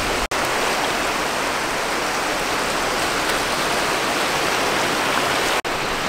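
Steady rushing hiss of shallow seawater and surf washing over a pebble beach. It cuts out for an instant twice, just after the start and near the end.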